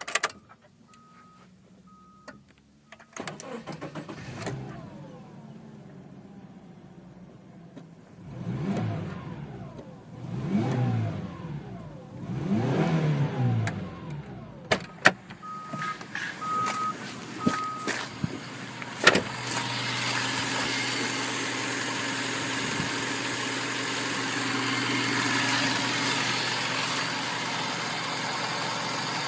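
A Subaru Forester's 2.0-litre flat-four petrol engine starts about three seconds in and idles, then is revved up and let fall back three times. In the last third it idles steadily, heard close up under the open bonnet. A short run of even beeps sounds at the start and again midway.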